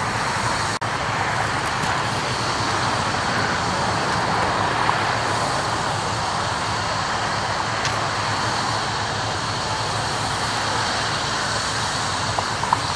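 Steady freeway traffic noise, an even wash of passing vehicles with no distinct events.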